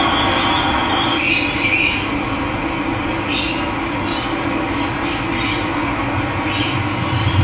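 Steady rush of running water, with a bird giving a series of short calls about once a second from about a second in. A thin steady high tone sounds over the water for the first second.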